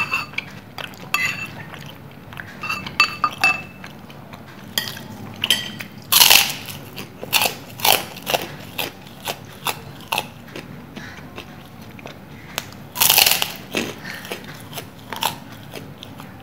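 Close-up crunching of a crisp white kerupuk cracker being bitten and chewed, in irregular bursts, loudest about six and thirteen seconds in.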